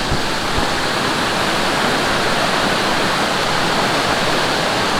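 Mountain valley stream rushing steadily over rocks, a dense, even sound of falling and cascading water.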